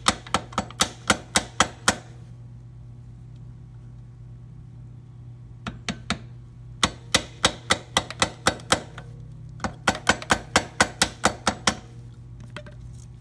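Small hammer tapping a steel footpeg pivot pin into a motorcycle's footpeg mount, in three runs of sharp metal-on-metal taps at about four a second. The pin keeps catching on the peg's spring and won't seat.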